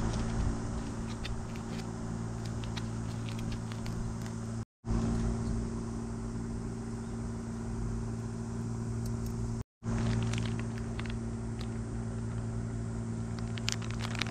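A steady low mechanical hum, like an engine running, with scattered small clicks and crackles over it. The hum cuts out briefly twice.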